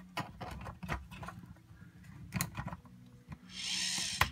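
3D-printed PLA robot parts being handled and fitted together: scattered light clicks and knocks of plastic on plastic, then a scraping rub of parts sliding against each other near the end, cut off by a sharp knock.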